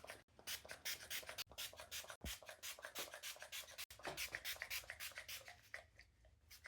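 Spray bottle of salt water squirting onto hair in a quick run of short hisses, about three or four a second.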